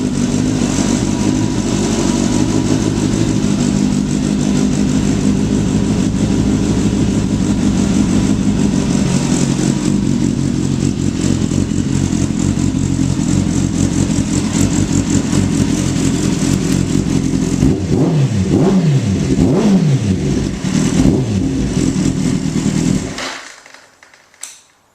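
2008 Kawasaki ZX-10R's inline-four engine idling steadily, revved a few times near the end with the pitch rising and falling, then switched off and cutting out abruptly.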